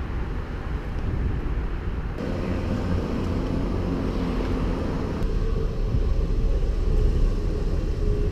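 Wind buffeting a bicycle-mounted action camera's microphone, mixed with the road rumble of riding, a steady low rumble whose character changes abruptly about two and five seconds in.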